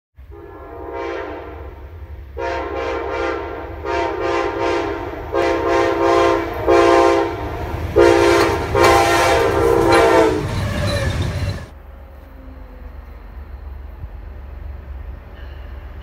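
An Amtrak P42 diesel locomotive's chord horn blows a run of about seven blasts, some long and some short, over the low rumble of the oncoming train. The train noise grows as it comes close, then cuts off abruptly about three-quarters of the way through, leaving a quieter steady rumble.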